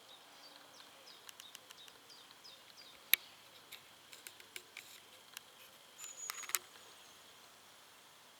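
Faint, short high chirps that fall in pitch, repeated through the first few seconds, with scattered sharp clicks, one much louder about three seconds in. Around six seconds in, a brief high whistle comes with a tight cluster of clicks.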